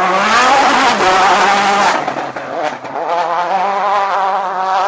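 Rally car passing close at high revs on a gravel stage, with a loud hiss of tyres and thrown gravel for the first two seconds. The engine note then carries on as the car pulls away, its revs rising and falling with the gear changes.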